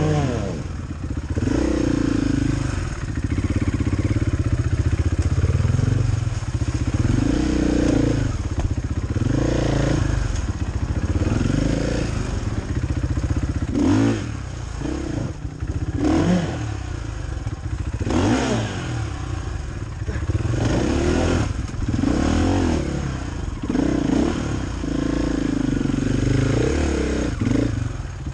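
KTM 500 EXC single-cylinder four-stroke enduro bike engine on a slow technical trail ride, its pitch rising and falling every second or two as the throttle is worked on and off, with clatter from the bike over rocks and roots.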